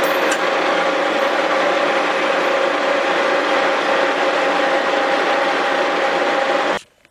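Milling machine face-milling the deck of a cast-iron Willys L-134 engine block: a steady cutting noise with a constant hum of the spinning cutter, stopping abruptly near the end.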